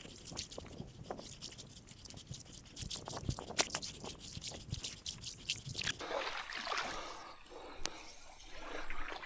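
Footsteps and rustling of someone moving up a small, shallow stream, with many sharp crackling clicks for about six seconds, then softer trickling and brushing sounds.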